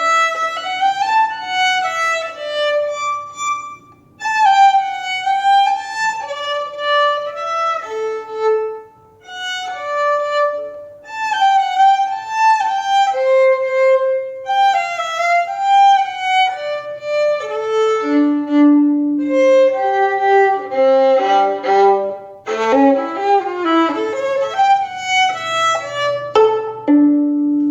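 Solo violin playing a playful melody in 7/8 time in short, detached staccato notes, with brief pauses about four and nine seconds in.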